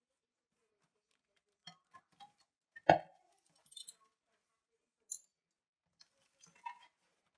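Corrugated cardboard box being opened by hand: scattered clicks, crackles and rustles as the flaps are pulled apart, with one sharp knock about three seconds in, the loudest sound.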